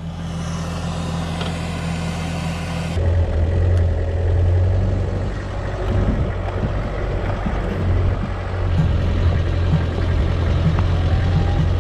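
A 4WD ute's engine idling steadily, then, after a sudden change about three seconds in, the ute driving along a rough gravel track: a low engine drone with rumble and knocks from the track.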